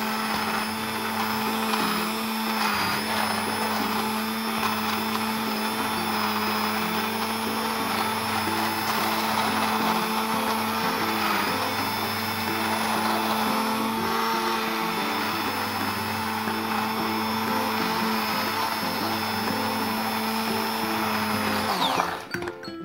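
Hand-held immersion blender running steadily as it purées soft cooked peaches in sugar syrup. It is switched off near the end, its pitch falling as the motor winds down.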